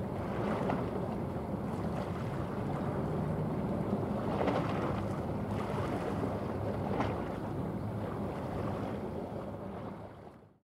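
Passing container ship: a low, steady engine drone under the wash of water along its hull, with wind on the microphone; it all fades out near the end.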